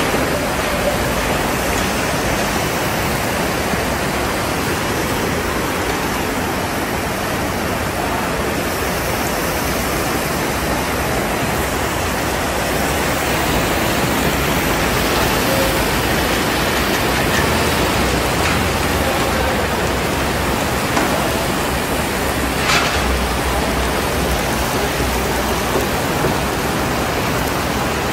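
A giant cauldron of plov boiling, a steady hiss and bubble of liquid cooking under heaped carrots and chickpeas.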